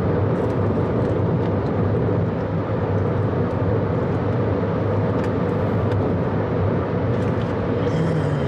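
Steady car engine and road noise heard inside the cabin of a moving car, with a low hum.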